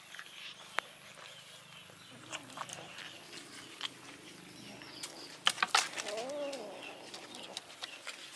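Cats and kittens eating fish from a shared plate: scattered wet chewing clicks and the odd tap on the plate, with a cluster of louder clicks about five and a half seconds in. Just after that there is one short, low call that rises and falls.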